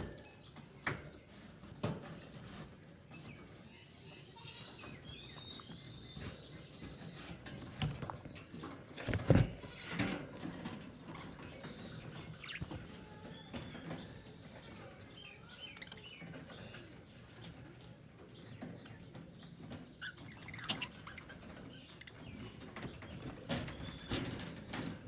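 Pet budgerigars chirping and chattering softly, with scattered clicks and taps and one louder thump about nine seconds in.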